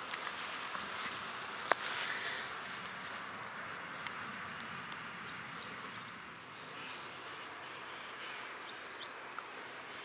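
Outdoor woodland ambience: irregular short high chirps over a steady background hiss, with a single sharp click and a brief rustle about two seconds in.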